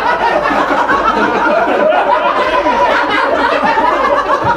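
Live audience laughing at a joke-teller's punchline: many voices laughing together without a break.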